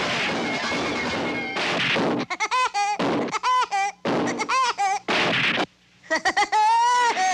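Cartoon soundtrack: dense orchestral music at first, then a high cartoon voice in three quick bursts of rapid staccato pitched pulses, with loud crashes between them. A brief drop near the end is followed by a held, gliding high note.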